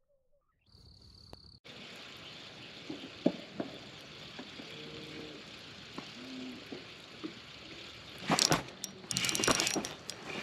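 A spinning reel being cranked to bring in a hooked sand bass (white bass), over open-air lake ambience. It starts after a brief silence, and loud bursts of water splashing come near the end as the fish reaches the kayak.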